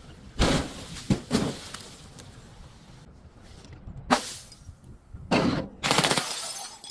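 Crunching and cracking of objects being crushed, in separate bursts: a sharp crack about half a second in, two more around a second in, a single snap around four seconds, then longer crackling crunches in the last second and a half, over a low steady rumble.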